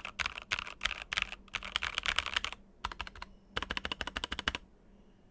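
Typing on a Keychron K8 aluminium mechanical keyboard with lubed NovelKeys Cream linear switches and a foam mod: rapid keystrokes, a short pause, then a fast final burst that stops about a second before the end. The switches still sound scratchy despite the lube, being new and not yet broken in.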